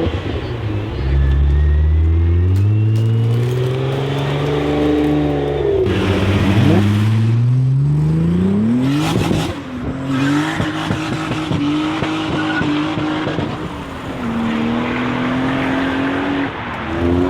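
Motor vehicle engine revving, its pitch climbing in long sweeps several times, with steadier held stretches between and a brief sharp clatter about halfway through.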